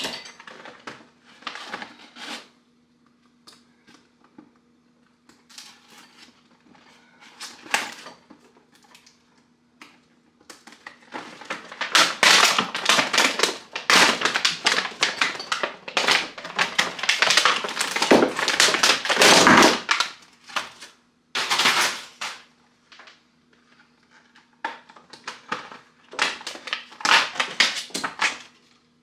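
Hand tools and their plastic packaging being handled and pulled apart on a workbench: rapid crackling and clicking with clinks of metal tools, busiest through the middle and again near the end. A faint steady hum runs underneath.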